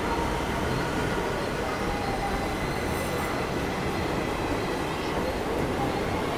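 Indian Railways passenger coaches rolling past close by: a steady, even rumble of steel wheels on the rails, with a faint thin whine running over it.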